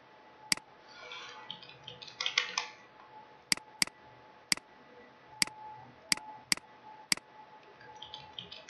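Computer mouse and keyboard: several sharp, separate clicks spread through, with a short patter of key presses about one to three seconds in, over a faint steady hum.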